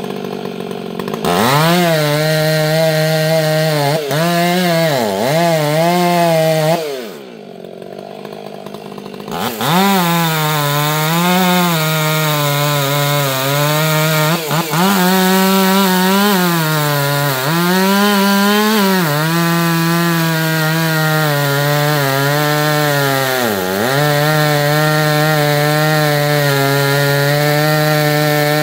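Two-stroke chainsaw running at high revs and cutting into decaying black walnut wood. Its engine pitch sags and recovers again and again as the chain loads up in the cut. The saw falls away to a quieter idle for about two seconds, about seven seconds in.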